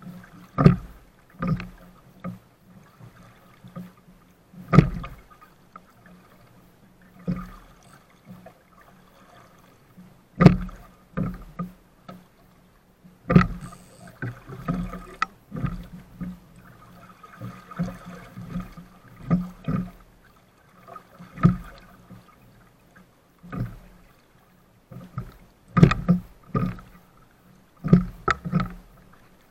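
Hull of a 420 sailing dinghy slapping through choppy water: irregular thumps as waves hit the hull, with water rushing past in between.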